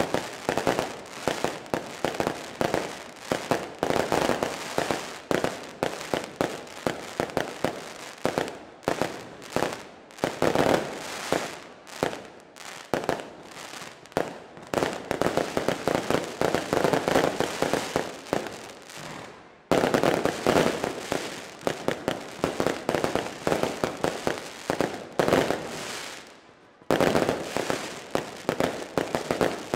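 Fireworks display: aerial shells bursting in rapid succession, a dense run of bangs and crackling. The sound jumps abruptly about twenty seconds in and again near twenty-seven seconds.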